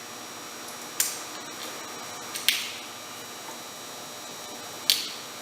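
Knife cutting through a thin plastic sheet, three sharp snaps as the blade pushes through, about a second, two and a half seconds and five seconds in.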